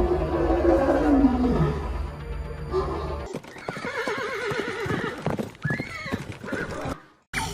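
Horse neighing: a long falling whinny over background music, then after the music stops about three seconds in, a run of wavering, quavering whinnies. The sound cuts out briefly near the end.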